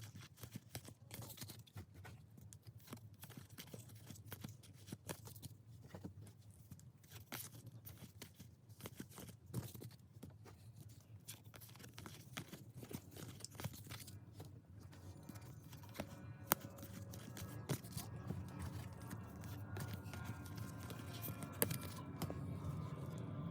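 A stack of trading cards being flipped through by hand: card stock sliding and scraping against card, with many small ticks and rustles.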